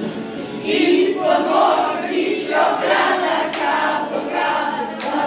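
A group of voices singing together, with two sharp taps or claps, one about three and a half seconds in and one near the end.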